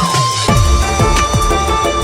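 Electronic background music: a falling sweep dies out just as it begins, and about half a second in a steady drum beat starts again under held synth tones.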